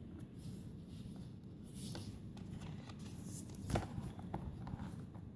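Pages and flaps of a children's lift-the-flap book being handled and unfolded: soft, faint paper rustling with one light tap about three and a half seconds in, over a low steady background rumble.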